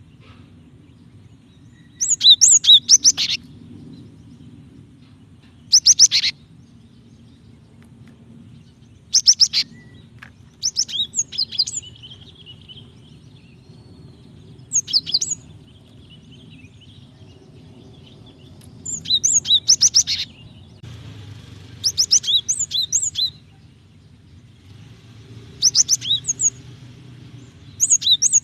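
Female cinereous tit (gelatik batu) calling to a male: short bursts of rapid, high chirping notes, about ten bursts with pauses of a second or more between them.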